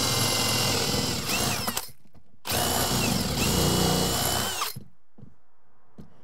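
Cordless drill boring a hole through a wooden wall stud, running in two stretches: the first stops about two seconds in, the second starts about half a second later and stops near five seconds in, its motor whine dropping in pitch as it winds down each time.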